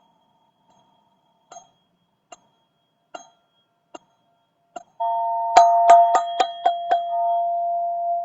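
Black ZenTube chime being played: soft single strikes about once a second, then from about five seconds in a much louder run of quick strikes over a steady ringing tone.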